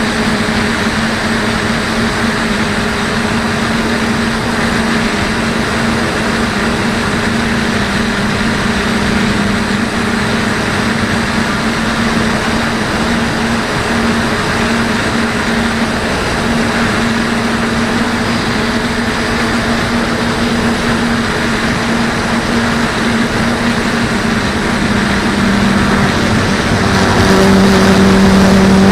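DJI F450 quadcopter's motors and propellers humming steadily in flight, heard from the onboard camera with a rush of wind noise. Near the end the hum drops slightly in pitch and grows louder.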